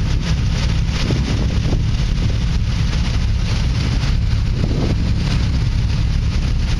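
Wind buffeting a microphone on a moving car, a steady low rumble with the car's running noise under it.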